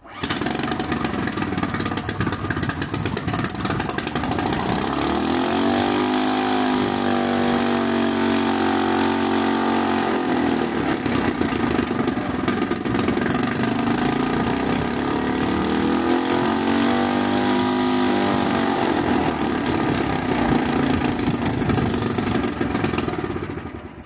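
Suzuki 2.5 hp single-cylinder four-stroke outboard catching on the pull-start and running. It is revved up twice, the first time for several seconds and the second more briefly, settling back to idle each time. Near the end it cuts out abruptly as the kill-switch cord is pulled.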